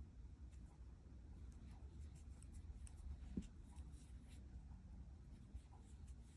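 Faint scratching and light ticks of a crochet hook pulling cotton yarn through single crochet stitches, with one soft thump about halfway through, over a low steady room hum.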